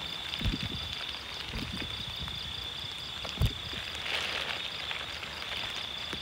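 Low thuds and knocks as a caught fish is handled and put into a plastic basket, with one sharper thump about halfway through. A steady high-pitched insect chorus runs behind.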